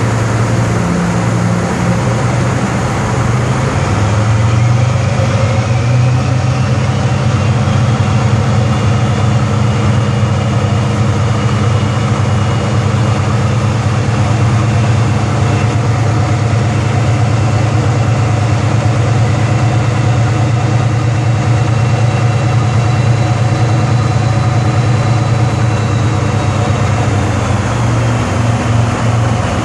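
A tugboat's diesel engines running hard under load, a loud steady low drone that swells a few seconds in. A high whine climbs about six seconds in, holds, and drops away near the end.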